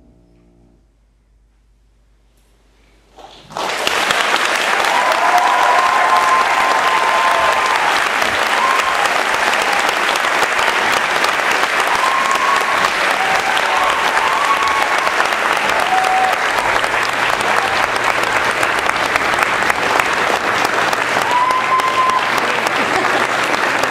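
The last soft chord of a piano trio (piano, violin and cello) fades out, and after a couple of seconds of near quiet an audience breaks into applause about three and a half seconds in. The clapping stays steady and loud, with a few voices calling out over it.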